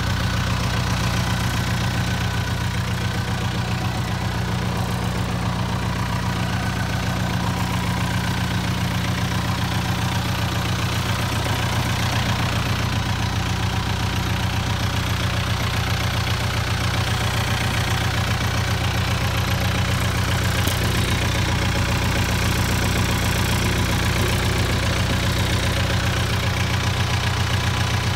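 Kubota M7040 tractor's four-cylinder diesel engine idling steadily.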